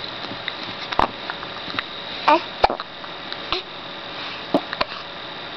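A six-week-old baby hiccuping: several short, sudden hiccups at irregular spacing, some with a tiny squeak of voice.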